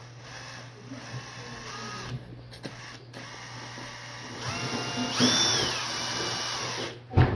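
Corn on the cob being eaten in quick passes: kernels bitten and chewed off the cob, over a steady low hum. A sharp, loud crunch or knock comes near the end.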